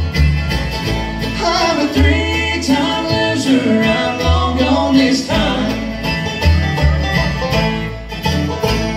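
Live bluegrass band playing: banjo, acoustic guitars, fiddle and mandolin over an upright bass.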